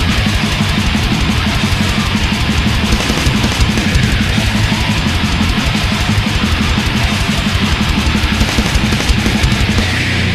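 Thrash-death metal song: distorted electric guitars over fast, unbroken drumming with constant cymbal hits, loud throughout.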